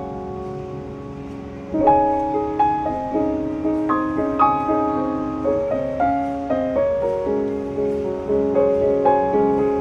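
Background piano music: a slow melody of struck notes over soft chords, quieter at first, with a fuller phrase coming in about two seconds in.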